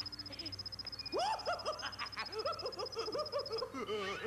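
Cartoon computer sound effects: a steady high electronic tone that stops near the end, over a run of quick warbling bleeps that glide up and down in pitch.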